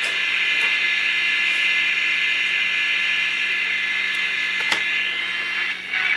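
Static hiss from the speaker of a mid-1960s GE AM/FM transistor radio, with a thin steady whistle running through it. A single sharp click comes about three-quarters of the way through.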